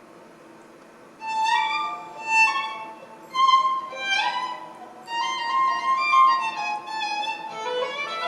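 Violin music playing a melody with slides between some notes. It comes in about a second in over a faint steady hum.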